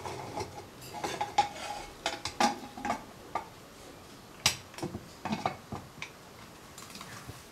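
Aluminium pressure cooker lid being fitted and locked by its handle: scattered metal clinks and scrapes, with a sharp knock about halfway through.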